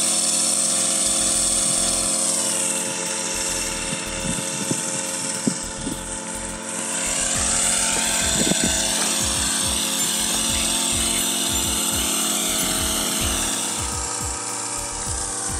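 Motorized knapsack mist-sprayer engine running steadily in the field, a droning whine with slight wavers in pitch, while the crop is sprayed.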